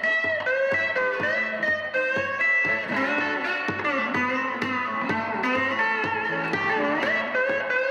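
Instrumental theme music, led by electric guitar with notes bending in pitch, over a steady beat.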